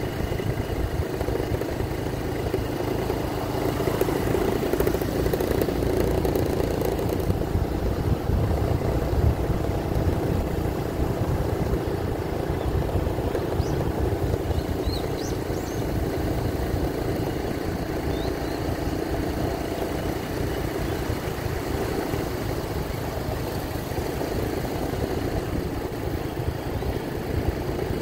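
Small motor scooter engine running steadily while riding at an even speed, with wind rumbling on the microphone.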